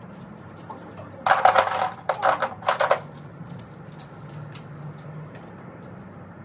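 Metal tools clattering as they are rummaged through in a tool crate, in three short bursts of rapid rattling starting about a second in. A steady low hum runs underneath.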